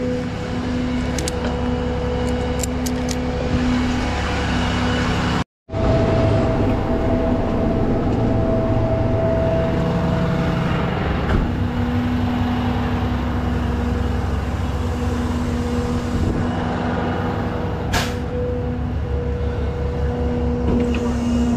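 Heavy diesel tow truck running on the road, a steady low engine drone. The sound cuts out briefly about five and a half seconds in, and there is a sharp click near the end.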